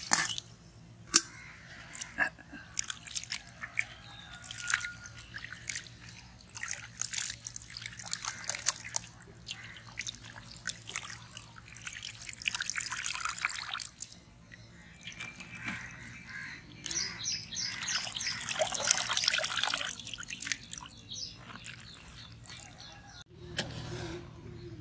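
Raw mutton pieces being washed by hand in water in a steel bowl: irregular splashing, sloshing and dripping as handfuls of meat are stirred, lifted and squeezed.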